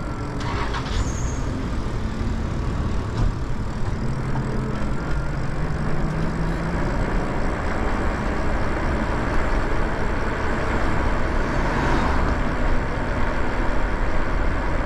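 Steady rush of wind over the microphone, with tyre and road noise from a Lyric Cycles Graffiti e-bike riding along a paved street.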